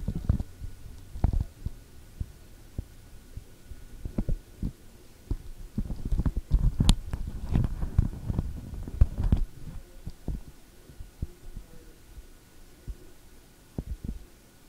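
Muffled handling noise on a covered recorder's microphone: irregular low thumps and rubbing over a low rumble, busiest and loudest in the middle, with a faint steady high tone throughout.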